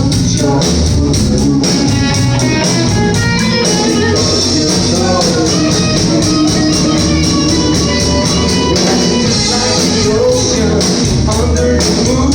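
Band music with electric guitar over a steady percussion beat, with some singing.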